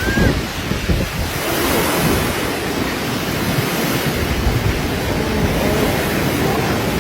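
Strong typhoon wind blowing hard and buffeting the microphone, over steady rushing waves.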